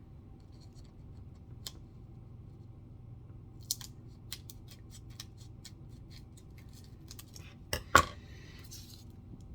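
A trading-card pack being opened by hand: scattered short crinkling clicks from the wrapper, a quick run of them a few seconds in, then two sharp clicks close together about eight seconds in, the loudest sound.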